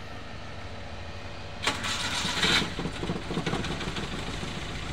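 Daihatsu Gran Max engine cranked by the starter about a second and a half in, catching within a second and settling into a rough, uneven idle: the engine is misfiring.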